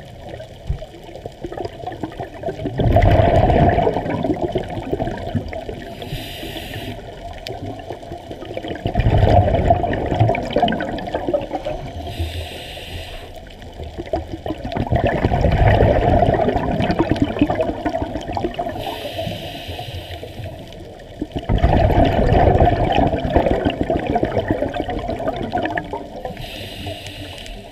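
Scuba diver breathing through a regulator underwater. Four gushes of exhaled bubbles come about every six seconds, each followed by the short hiss of an inhalation.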